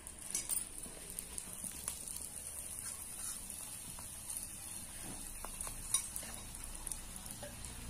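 Miniature puri deep-frying in hot oil in a tiny steel kadai over a wood fire: a faint steady sizzle, with a few sharp clicks as the slotted spoon works in the pan, the loudest about six seconds in.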